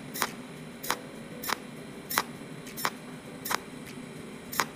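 Cold welding machine's electrode firing in sharp, evenly spaced clicks, about one and a half a second, each a discharge pulse depositing weld metal into the hollow of a metal hex nut.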